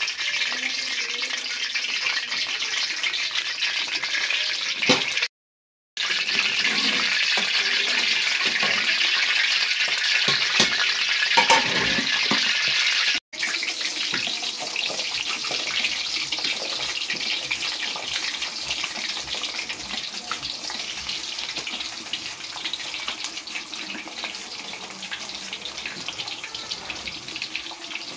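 Thin potato slices frying in hot oil in a karahi: a steady crackling sizzle that cuts out twice, once for about half a second near the start and once very briefly about halfway through, and is a little softer in the second half.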